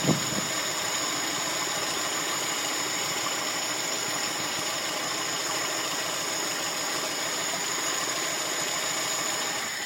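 VAZ 2108-family four-cylinder engine with a Solex carburettor idling steadily, then cutting out right at the end as the carburettor's idle solenoid valve is switched off: the sign that the valve works properly.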